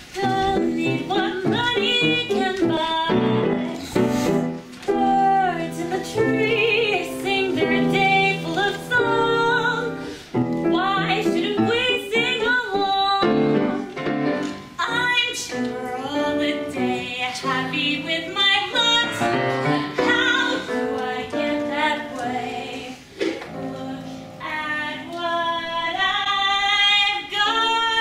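Music: a woman singing a song with piano accompaniment, holding long notes with vibrato near the end.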